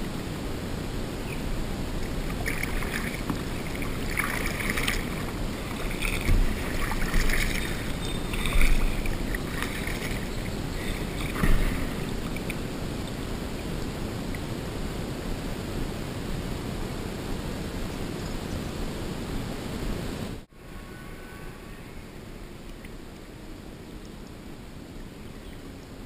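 Kayak moving on a slow creek: steady water noise around the hull and paddle, with a run of splashes and knocks from about three to twelve seconds in, three of them louder. The sound drops quieter after about twenty seconds.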